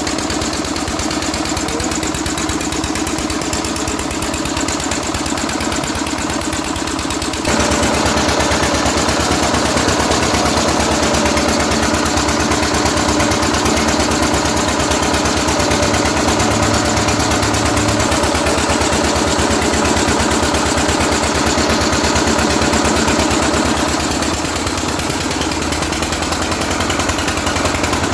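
Usha 16 HP single-cylinder diesel engine running with a steady, rapid firing beat. It gets louder and brighter about seven seconds in, and eases back slightly near the end.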